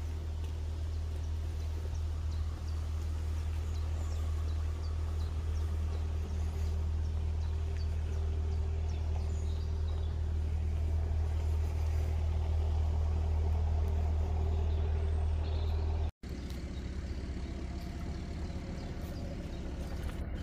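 A motor launch's engine running steadily with a deep low hum. There is a momentary break about 16 seconds in, and then the engine runs on while the launch moves off.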